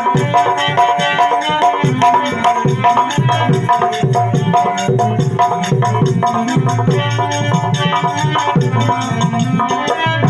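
Indian devotional stage accompaniment music: hand drums keep a steady rhythm under held melodic tones.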